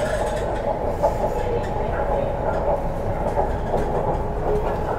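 Onboard running noise of an MTR CNR Changchun-built 'C' train EMU motor car: a steady rumble of wheels on the rails, with a sharp click about a second in.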